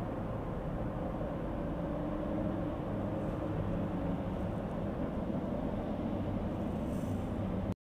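Steady low rumble of city traffic, which cuts off abruptly near the end.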